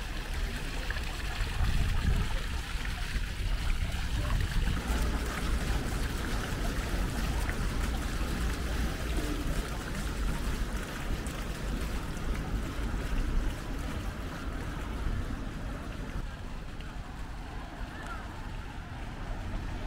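City street ambience: a steady rushing noise with a low rumble underneath.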